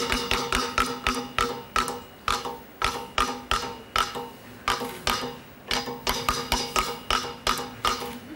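Large game-show prize wheel spinning down, its pointer clicking against the pegs at the rim. The clicks slow from about five a second to about two a second as the wheel loses speed, and stop near the end.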